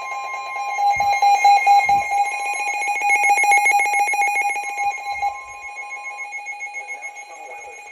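Weather alert radios sounding warning alarms together: steady electronic alarm tones, including NOAA Weather Radio's 1050 Hz warning tone, which cuts off about six seconds in. One receiver's alarm beeps rapidly for a few seconds in the middle, and there are two low knocks about one and two seconds in.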